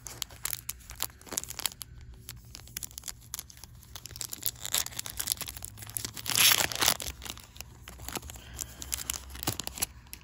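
Foil Yu-Gi-Oh booster pack crinkling in the hands and being torn open, with the loudest tear about six and a half seconds in.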